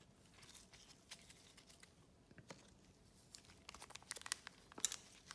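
Faint crinkling and light clicks of trading cards and their pack wrapper being handled, sparse at first and busier from about three and a half seconds in.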